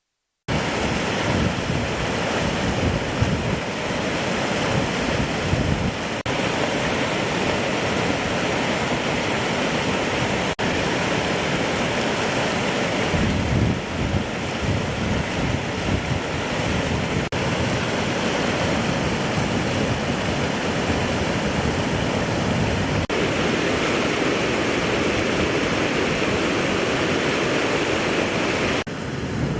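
Steady loud rush of the flooded Godavari river's water, mixed with wind buffeting the microphone, with a few brief breaks where the footage cuts.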